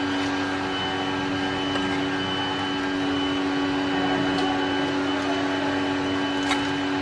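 Steady hum of a running appliance motor with one strong steady tone, and a few faint clicks over it.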